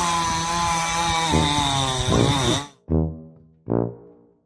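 Chainsaw running at high revs, then cutting off suddenly after about two and a half seconds, followed by two short revs that die away.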